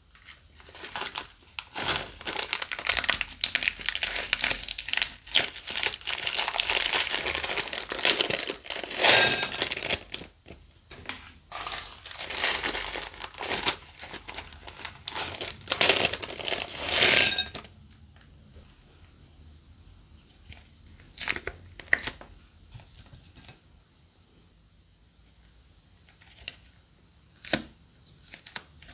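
Plastic glue bags crinkling and tearing as they are squeezed and handled, in dense bursts for about the first 17 seconds. After that come only a few scattered clicks and rustles.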